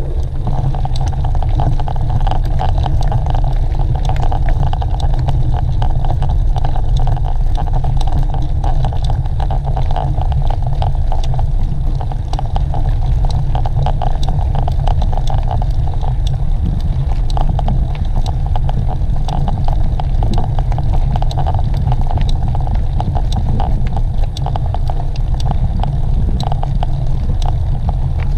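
Wind buffeting a camera microphone on a moving mountain bike, with a steady rattle of quick clicks and knocks from the bike running over rough ground.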